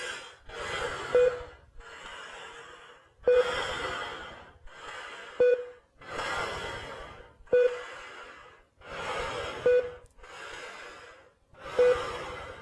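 Heavy, rhythmic breathing, a loud rush of breath followed by a quieter one. A short electronic beep comes with each cycle, about every two seconds.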